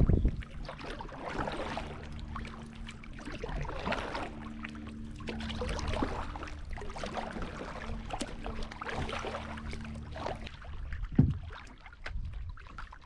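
Kayak paddle strokes splashing in lake water, with a swell of sound every couple of seconds.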